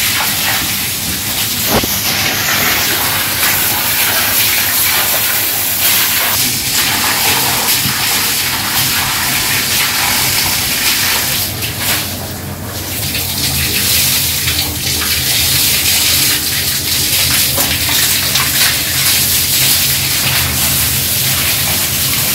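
Water gushing and splashing steadily as dung is washed off a cowshed floor, easing briefly about twelve seconds in.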